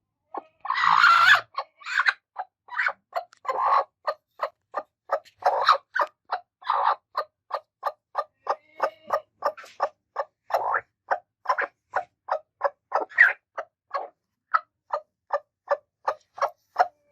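Broody hens clucking in a steady run of short clucks, about two to three a second, with one longer, louder, harsher call about a second in.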